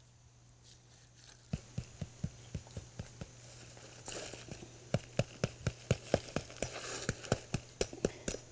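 A long knife blade scraping and knocking the ash off the hard, charred crust of a bread baked in the embers, in short sharp strokes about four a second that start about a second and a half in and come faster in the second half.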